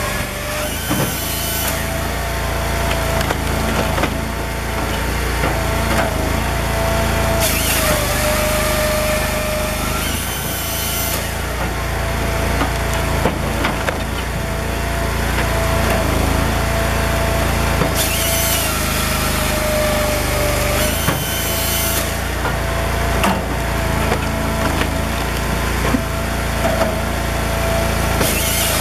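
Cord King M1820 firewood processor running steadily. Several times its chainsaw bar cuts through a log with a hissing saw sound, and the splitter forces rounds through its six-way wedge with wood cracking and splintering.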